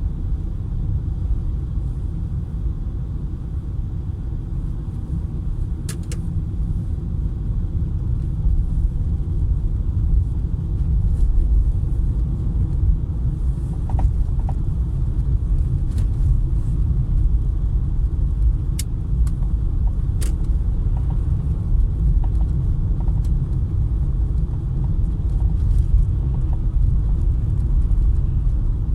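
Low, steady road rumble of a Peugeot 408 being driven, with a few sharp knocks scattered through it: the knock from the front end of the car.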